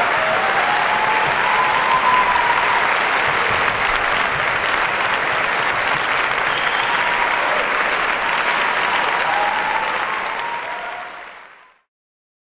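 Concert audience applauding steadily in a hall, with a few faint cheers above the clapping; the applause fades out about eleven seconds in.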